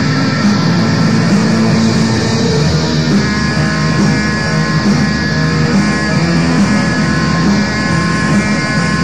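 Raw black metal: a dense, loud, continuous wall of distorted electric guitar, with long held notes from about three seconds in.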